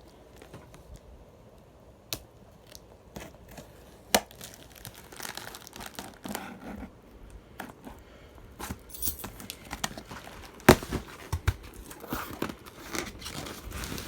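Ceiling fan's cardboard box and packaging being opened by hand: tearing and crinkling with scattered knocks, the loudest knock about ten and a half seconds in.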